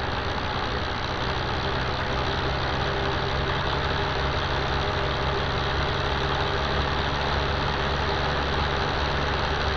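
A power saw running steadily at constant speed: a low, even hum under a dense hiss.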